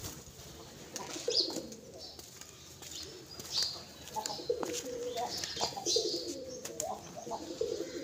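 Domestic pigeons cooing, the low coos growing steadier from about halfway, with short higher chirps and scattered sharp clicks of beaks pecking grain on the ground. A brief flutter of wings at the very start.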